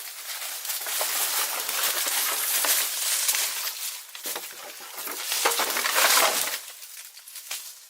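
Dry crunching and rustling of material being handled, dense with small crackles, in two spells with a brief lull about four seconds in and dying down near the end.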